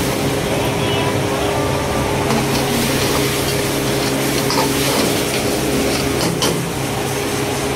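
Steady roar and hum of the wok burner with the chicken-chilli sauce sizzling in the steel wok. A few light clinks of the steel ladle against the wok as it stirs.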